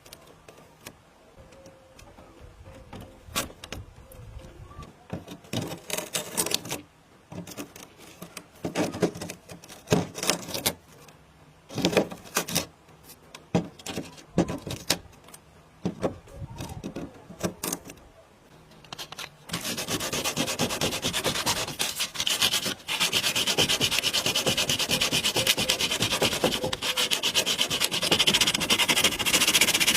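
Sanding and scraping strokes on particle board: scattered separate strokes at first, then steady, fast back-and-forth sanding, louder, from about two-thirds of the way through.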